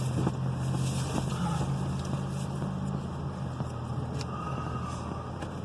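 Car engine idling steadily, a low even hum heard from inside the car, with a few faint clicks.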